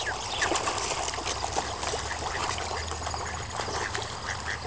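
Busy splashing and churning of water from a crowd of fish thrashing at the surface, with a few short bird calls over it.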